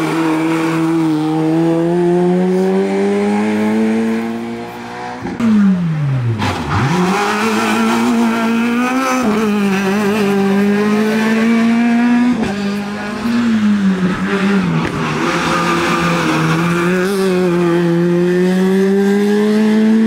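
Small rally car engines, a Peugeot 106 and a Fiat Panda among them, revving hard one after another through a hairpin, the engine note climbing as they accelerate and dropping sharply about five and a half seconds in as one car passes and lifts off.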